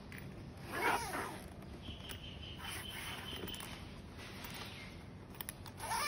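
Zipper on a fabric Victorinox knife bag pulled in two quick runs, one about a second in and another at the very end, its rasp rising and falling in pitch with the pull's speed.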